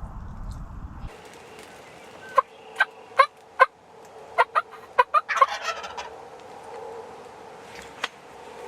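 Wild turkey jake calling at close range: a run of sharp, short notes from a couple of seconds in, ending in a rattling gobble about five and a half seconds in, with one more short note near the end. A low rumble stops about a second in.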